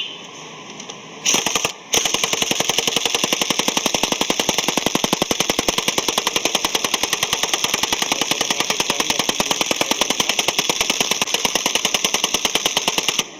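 Impact wrench tightening a scooter's clutch nut: a short burst about a second in, then continuous rapid hammering for about eleven seconds that stops abruptly near the end.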